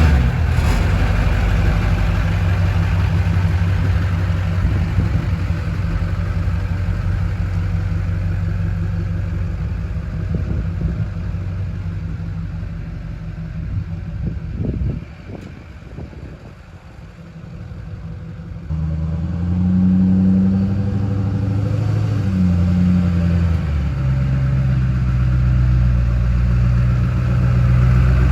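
Duramax 6.6-litre V8 turbodiesel pickup engine running, with a steady hum for the first half. It drops quieter for a few seconds around the middle, with a few knocks, then runs again with its note stepping up and down as the truck is driven, on a test drive after new pitman and idler arms were fitted.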